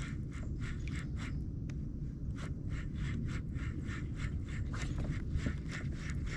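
Fishing reel being cranked to retrieve a lure: a steady run of short scraping clicks, about three or four a second, over a low rumble of wind or handling noise on the camera mic.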